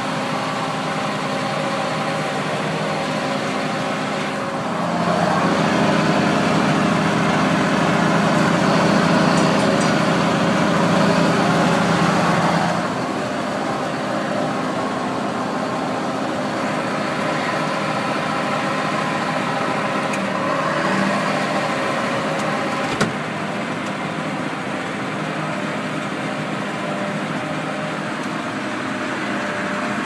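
John Deere 6630 tractor engine running steadily while pulling a John Deere 852 round baler, heard from inside the cab. It grows louder and deeper for about eight seconds from some five seconds in, and there is a single sharp knock about three quarters of the way through.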